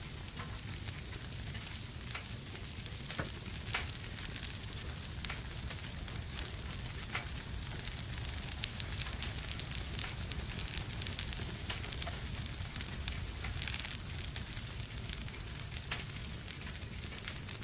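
Wood fire in a fireplace crackling: a steady hiss with many sharp pops and snaps, busiest about halfway through, over a low rumble.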